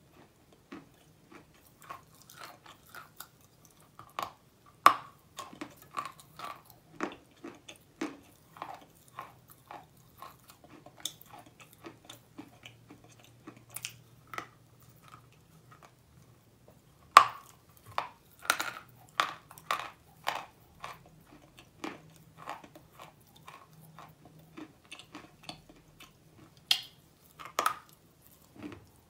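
Lump of white chalk being bitten and chewed close to the microphone: a run of sharp, irregular crunches. The loudest come about five seconds in and again about seventeen seconds in.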